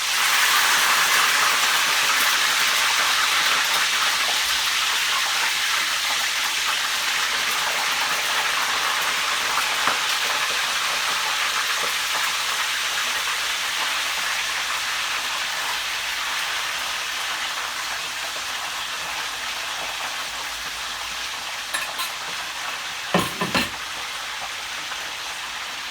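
Fish frying in hot palm oil mixed with vegetable oil: a loud sizzle that starts suddenly as the fish goes in and slowly eases off. A few light knocks near the end.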